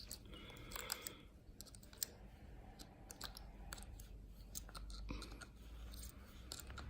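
Faint, irregular small clicks and ticks of tiny lock pins and parts being handled and fumbled while a disassembled pin-tumbler lock's pins are sorted.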